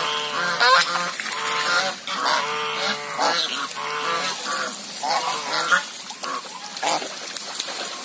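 A group of white domestic geese honking over and over, calls overlapping densely at first and thinning out near the end, as the geese crowd around a mating pair in the water.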